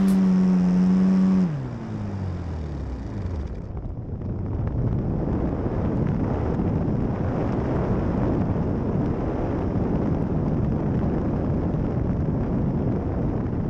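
Small single-cylinder piston engine of a radio-controlled model plane, heard from on board, running at a steady high pitch. About a second and a half in it cuts out and winds down over the next two seconds. After that, with the propeller stopped, air rushes over the microphone as the plane glides without power.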